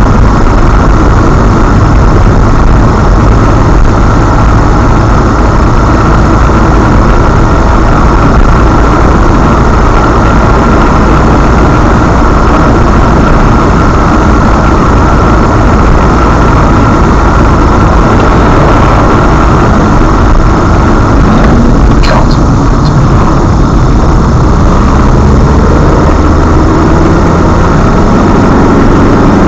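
Loud, steady road and engine noise of a car driving at speed, picked up by a dashcam inside the car. A brief knock about two-thirds of the way through, and an engine note rising in pitch near the end.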